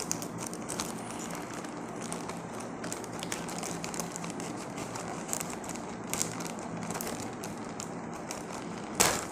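Scissors snipping along the edge of a plastic courier mailer bag, a run of small clicks and crinkles, with a louder rustle of the plastic near the end.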